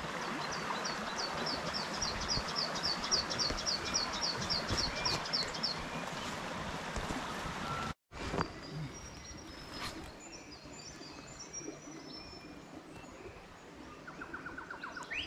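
Shallow creek water running over a rocky riffle, with a bird repeating a short high note about four times a second for about five seconds. After a sudden cut about eight seconds in, the water is much quieter and scattered high bird chirps are heard.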